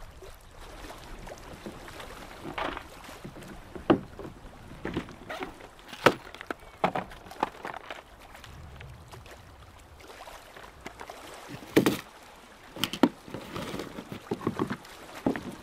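Fishing gear being handled on a plastic kayak: clear plastic lure boxes lifted out of a tackle bag and a hand rummaging in the kayak's deck hatch. The result is an irregular string of sharp clicks, knocks and rattles.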